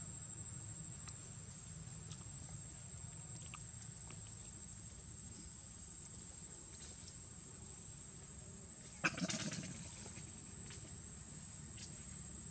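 Outdoor background of a steady low rumble and a thin, constant high whine, with a few faint ticks. About nine seconds in, one sudden loud sharp sound with a brief noisy tail.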